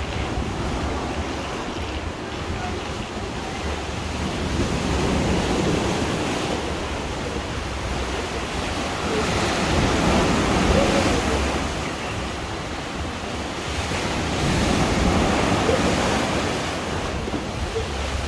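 Heavy, storm-driven surf: waves breaking and crashing in, swelling to a louder surge about every five seconds, with wind buffeting the microphone.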